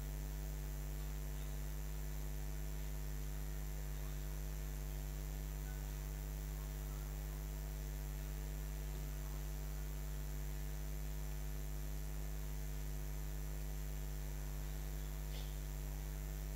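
Steady mains hum from the public-address sound system: a constant low electrical buzz with a ladder of overtones, unchanging throughout, with one faint click near the end.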